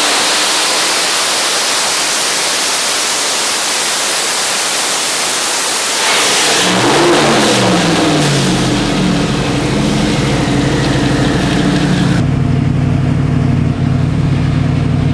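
Twin-turbocharged 427 cubic-inch LS V8 on an engine dyno at high revs under load, a loud, dense rush of engine noise. About six seconds in, the revs fall away and it settles to a steady idle.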